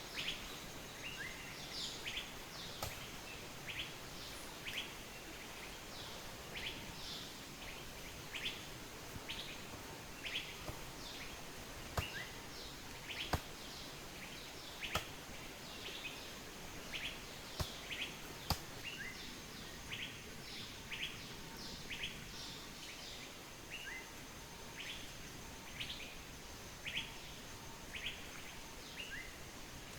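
Small birds chirping: short, quick notes repeated one or two a second over a steady background hiss, with a few sharp clicks in the middle.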